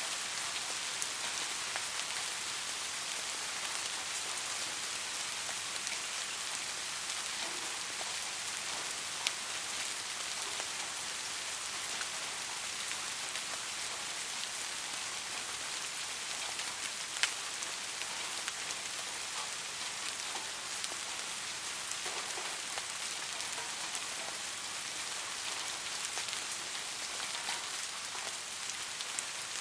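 Steady rain falling on a surface, an even hiss with many small drop ticks and an occasional sharper drip.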